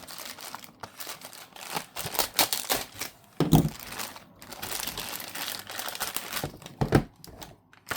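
Product packaging crinkling and tearing as it is pulled open by hand, in irregular crackly bursts, with two louder knocks about halfway through and near the end.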